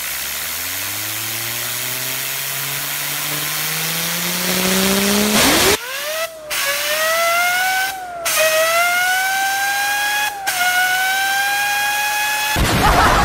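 A whine climbing steadily in pitch over a hiss, then jumping sharply higher about five seconds in. It is broken three times by short silences, each followed by a lower pitch that climbs again, like an engine shifting up through gears. A loud burst of noise comes near the end.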